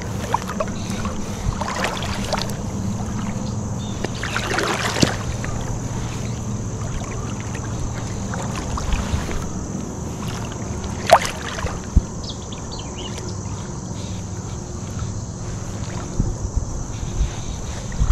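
Steady flow of shallow river water around a wading angler, with a few brief swishes and knocks from stripping and casting fly line.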